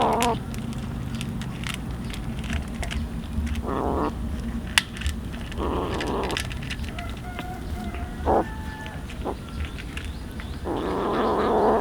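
An animal calling several times, in short harsh cries a few seconds apart, with a longer cry near the end.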